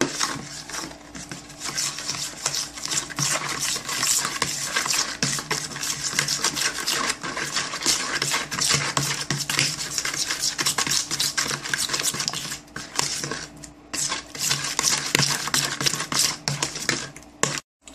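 Metal utensil briskly mixing a runny mix of egg, oil, yeast, salt and sugar in a plastic bowl: rapid scraping and tapping against the bowl, over a steady low hum. There is a brief lull about three-quarters through, and the sound cuts off abruptly just before the end.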